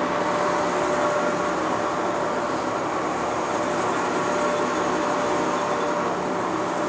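Century B-40 heavy-duty gap-bed lathe running steadily with its spindle at 525 RPM: an even, loud gear-train hum with a constant whine over it.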